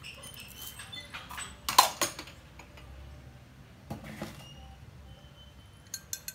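Spoon and plastic containers clicking and tapping as granulated sugar is spooned into a clear plastic blender jar: a few short, sharp taps, the loudest about two seconds in and more around four and six seconds.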